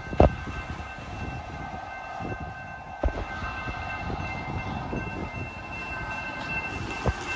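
BNSF local freight train rolling away over a grade crossing, its wheels on the rails making a steady rumble with a few sharp clunks, about a second in, near the middle and near the end. Steady high tones from the crossing's warning signal sound over it.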